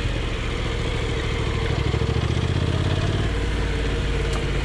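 Honda NC750X's parallel-twin engine running steadily at low revs, its note shifting a little about three seconds in.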